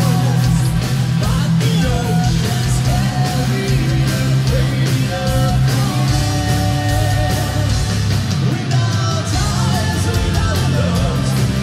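Symphonic metal band playing live: a female lead voice singing over distorted electric guitars and drums.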